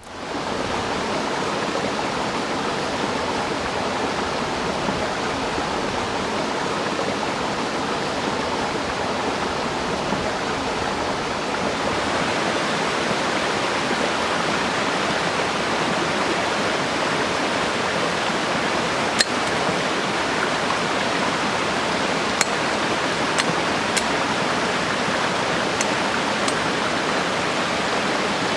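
Small forest stream running over rocks: a steady rush of water that fades in at the start and grows a little louder about halfway through. In the second half, a handful of sharp clicks sound over the water.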